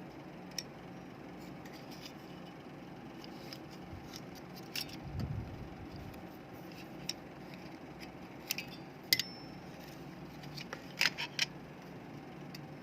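Scattered light clicks and taps of a plastic remote control's casing and parts being handled, with a cluster of quick clicks near the end, over a steady low hum.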